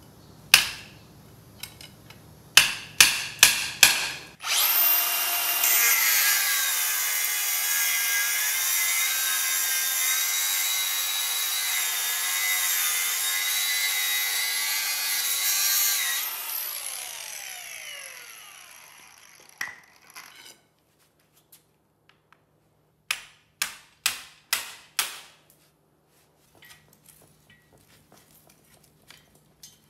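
Angle grinder with a cut-off wheel spinning up about four seconds in and cutting for some ten seconds through a rusted sway bar clamp on a VW Beetle front axle beam, then winding down with a falling whine. Before and after it come quick runs of about five sharp blows on metal.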